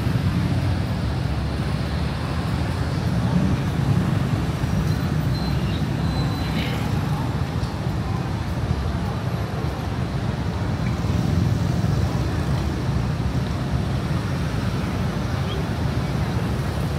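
Steady city street ambience dominated by the low rumble of road traffic going by, with people's voices faintly in the mix.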